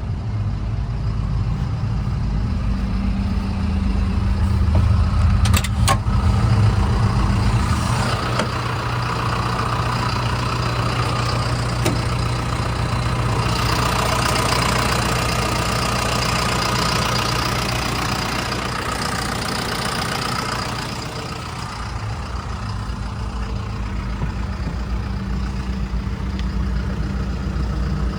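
The John Deere 310SJ backhoe loader's four-cylinder diesel engine runs continuously. About eight seconds in its note changes and a higher-pitched noise builds through the middle, then around twenty-two seconds it settles back to the lower, idle-like note. A couple of sharp clicks come at about six seconds.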